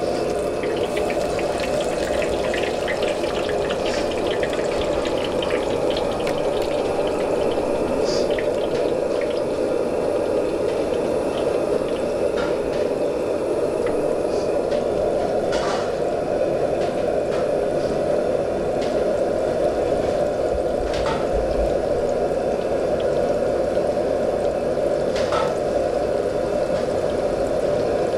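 Battered pork pieces deep-frying in a wok of hot oil: a steady sizzle with crackling and a few sharp pops.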